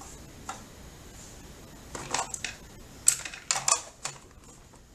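Handling clicks and knocks as thread spools are set onto the spool pins of a domestic straight-stitch sewing machine: a few single clicks, then a quick cluster of louder knocks about three seconds in.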